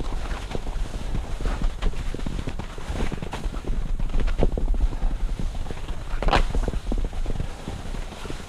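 Skis scraping and clattering over bumpy spring snow, with a steady low wind rumble on the camera microphone. A louder scrape comes about six seconds in.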